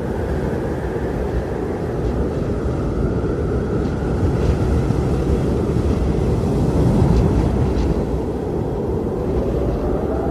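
Strong wind blowing in a steady deep rush, with a howling tone that rises in pitch near the end.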